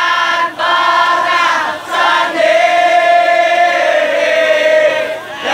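Large crowd of football supporters singing a chant together in unison, in phrases with short breaks and one long held note in the middle.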